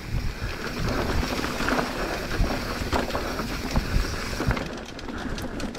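Mountain bike riding over a rough dirt trail: tyres rumbling on the ground, with scattered knocks and rattles from the bike.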